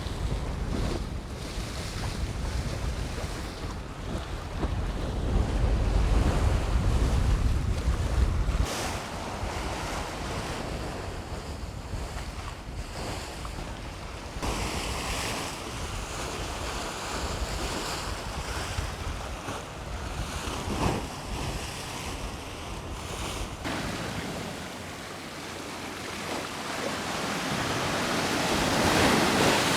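Sea waves washing onto the shore, with wind buffeting the microphone, heaviest a few seconds in; a wave surges up near the end.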